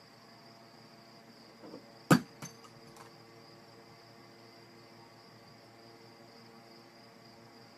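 A small hard object knocked off the dresser by a cat's paw hits the floor with one sharp clack about two seconds in, then bounces with a few quicker, fainter clicks over the next second.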